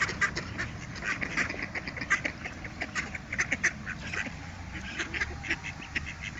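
A flock of mallards quacking, many short calls coming quickly and overlapping, as the ducks crowd in to be fed by hand.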